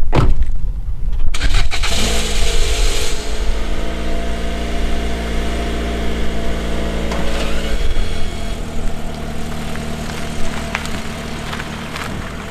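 A knock, then a vehicle engine starting about a second later and running steadily; its note changes and drops about eight seconds in.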